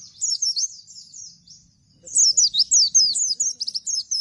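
Bustomi pleci (white-eye) singing a rapid-fire 'nembak' song of high, quick, down-sweeping whistled notes, in two runs with a short pause between them about a third of the way in.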